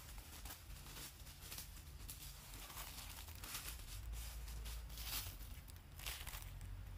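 Dry leaf litter rustling and crackling in short, irregular bursts, over a faint low rumble.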